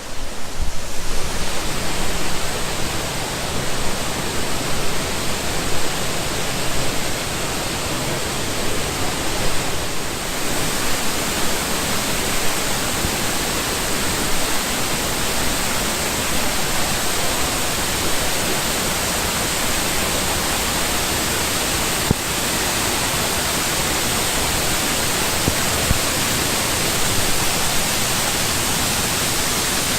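Loud, steady rush of a waterfall heard from right beside and under the falling water.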